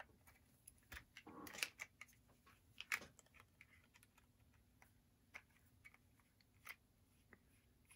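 Faint, scattered small clicks and light scrapes of a small screwdriver turning the screws that hold a plastic HO scale locomotive body shell, with fingers shifting their grip on the model; the loudest click is about three seconds in.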